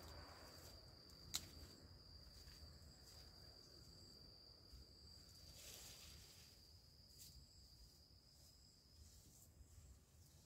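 Faint, steady high-pitched insect trill that cuts off near the end, with one sharp click about a second in.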